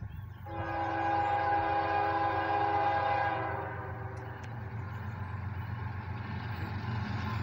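Diesel locomotive air horn sounding one long, steady blast of about three seconds, a multi-note chord, from a GE ES44DC. Under it and after it runs the low rumble of the approaching train, growing louder near the end.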